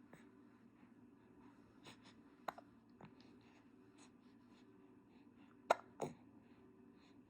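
Hiccups: short, sharp catches at uneven intervals, one about two and a half seconds in and a louder pair close together near six seconds, over a faint steady hum.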